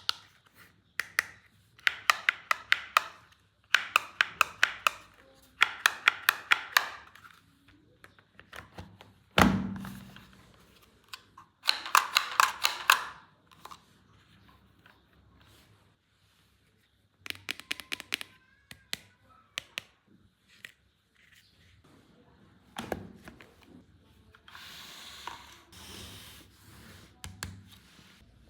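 Plastic toy pieces being handled: repeated bursts of quick clicking, a single heavier thump about nine and a half seconds in, and a softer rustle near the end.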